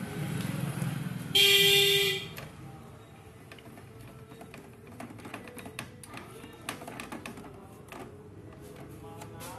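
A loud honk sounds once, about a second long, starting just over a second in. Around it come light, scattered clicks and scrapes of a screwdriver working on the opened printer's plastic and metal parts.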